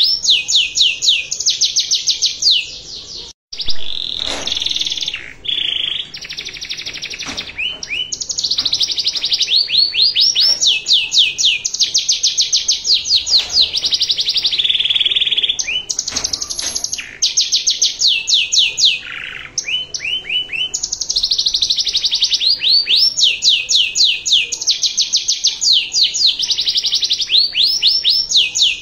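Domestic canary singing: long, rapid trills of repeated down-slurred notes, one rolling phrase after another, with a brief dropout about three seconds in.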